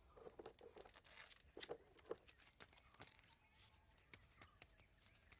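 Near silence: faint rustling and scattered light clicks, a little busier in the first couple of seconds.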